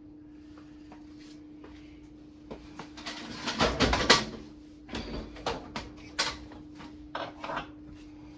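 Clattering and knocking as the microwave and its mounting hardware are shifted against the cabinet. A dense cluster of knocks comes a few seconds in, followed by several separate sharper knocks. A faint steady hum sits underneath.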